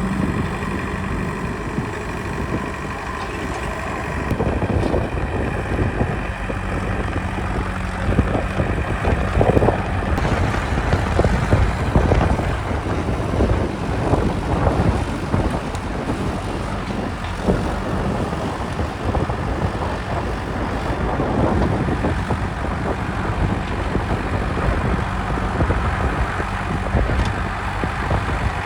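Heavy diesel machinery running continuously, with a low rumble and several louder surges. A faint steady whine sounds over it until about a third of the way through.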